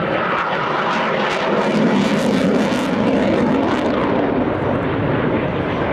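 Jet noise from a Eurofighter Typhoon FGR4's twin EJ200 turbofans during a display pass: a loud, steady roar that crackles most strongly around two to three seconds in.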